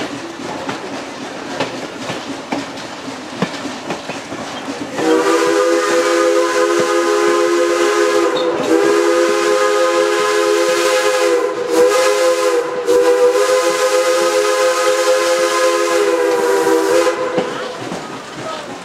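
Steam locomotive No. 4's chime whistle, several notes sounding at once, blown in two long blasts, a short one and a final long one: the grade-crossing signal. Underneath, the steady rumble and clatter of the coach wheels on the rails.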